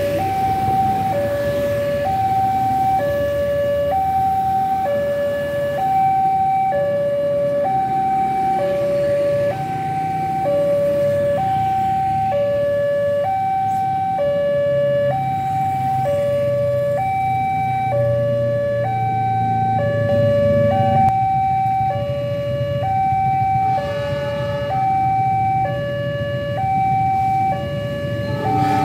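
Electronic two-tone warning alarm at a railway level crossing, sounding a high tone and a lower tone in turn, each about a second long. It warns that a train is approaching while the barriers are down.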